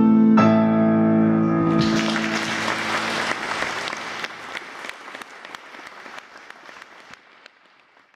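A Schimmel grand piano's final chord, struck about half a second in, rings out; about two seconds in an audience breaks into applause, which fades away toward the end.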